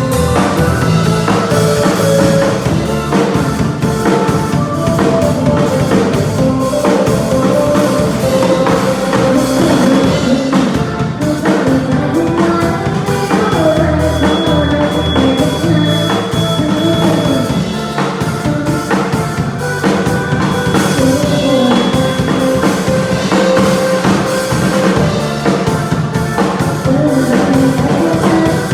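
A live band rehearsing a song: a drum kit keeps a steady beat under bass and a wavering melody line.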